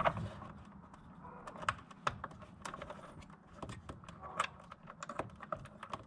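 Scattered light clicks and taps of a washer and nut being fumbled onto a bolt by hand in a tight, hard-to-reach spot, coming irregularly with short gaps between.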